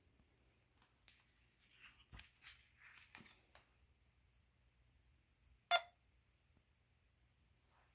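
Faint rustling and sliding of paper scratch-off lottery tickets being handled and laid on a stack, followed a couple of seconds later by one sharp click.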